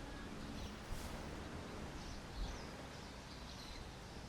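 Caged songbirds chirping, with short high calls scattered over a steady background hiss, and a soft low thump about two seconds in.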